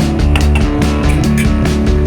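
Background music: a rock track with guitar over a steady drum beat.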